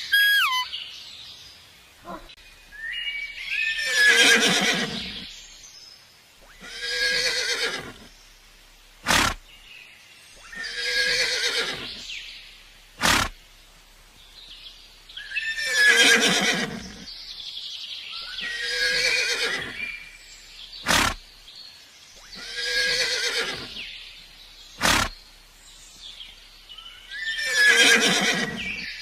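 Horse whinnying again and again, about seven loud neighs a few seconds apart, with a few brief sharp sounds between them.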